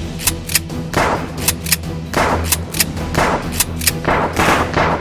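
Nerf blasters firing several shots, about one a second, over background music with a steady low beat.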